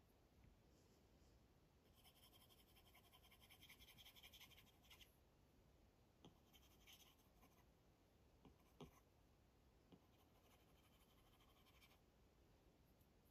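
Faint scratching of a stylus nib drawing across an iPad screen in runs of quick sketching strokes, with a few light taps of the nib on the glass in between.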